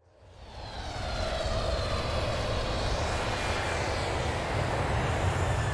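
Sound effect of a steady, aircraft-engine-like rush with a low rumble, fading in over about the first second and then holding steady.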